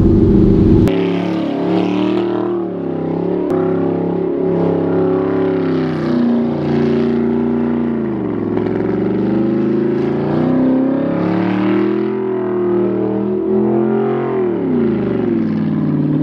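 2009 Audi R8's engine revving hard during donuts in dirt, its pitch swinging up and down continuously, with two deeper drops in revs that climb straight back up.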